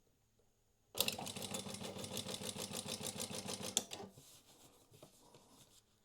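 Prosew PS-1903SX industrial walking foot sewing machine running a programmed multi-segment stitch sequence. It starts about a second in, stitches at a fast, even rhythm for nearly three seconds, then stops abruptly.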